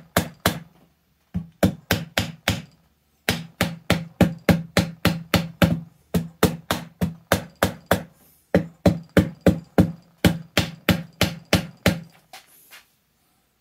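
Mallet tapping down on a Sea-Doo 951 two-stroke engine's cylinder head to seat it over its studs: quick knocks, about five a second, each with a low ring. The knocks come in runs broken by short pauses and stop about a second and a half before the end.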